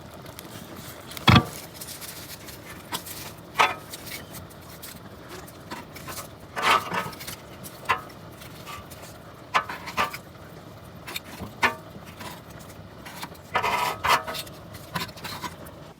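Irregular knocks, clinks and scrapes of foil-wrapped sweet potatoes and fire tools being handled at a wood-fired furnace, with a sharp knock about a second in as the loudest and a couple of short rustling spells.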